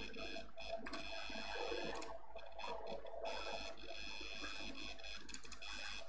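Steady electrical hum with a high, multi-tone whine over faint room noise, and a few faint ticks.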